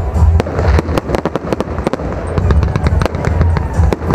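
Aerial fireworks going off: many sharp bangs and crackles in quick succession over a steady low rumble.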